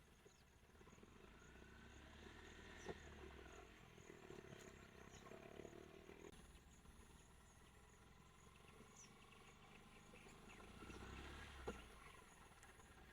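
Faint forest ambience: insects chirping steadily in a fast repeating pattern over a low rumble that swells twice, with two sharp clicks.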